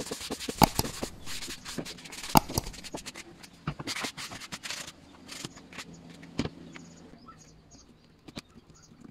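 Sandpaper rubbed by hand over an old wooden clock frame, in quick scratchy strokes. Two sharp knocks about half a second and two and a half seconds in are the loudest sounds. The rubbing dies away in the second half.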